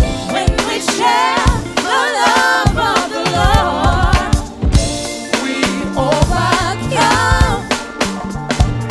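Song with singing over a drum kit and bass: an upbeat gospel-style track with a steady beat.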